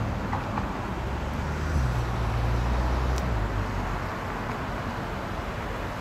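Road traffic: a steady hum of passing vehicles, with a louder low rumble for about a second and a half, about two seconds in.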